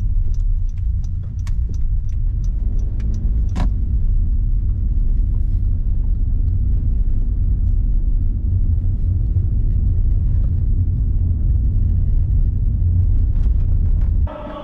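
Steady low rumble of a car on the move, with a run of light clicks in the first few seconds and one sharper click a little later; the rumble cuts off suddenly near the end.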